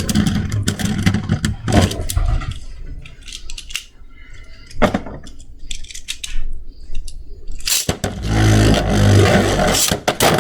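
Plastic clicking and clattering of Beyblade tops and launchers being handled. There is a quick run of clicks at first, a sharp single click about five seconds in, and a louder, denser rattle in the last two seconds.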